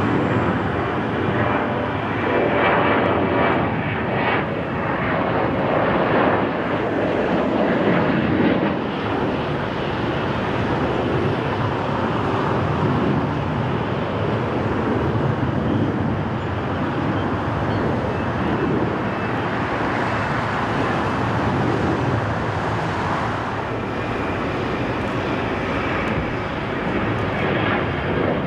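Boeing 737 airliners' jet engines at takeoff power: a steady, loud rush of jet noise, with a faint whine over it in the first several seconds.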